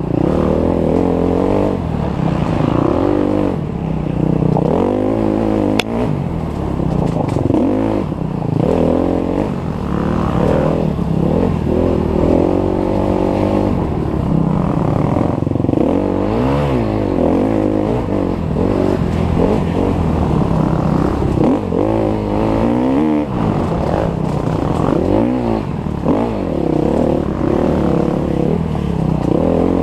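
Dirt bike engine revving up and down constantly as the throttle is opened and closed between corners, heard close up from a helmet camera. A single sharp click about six seconds in.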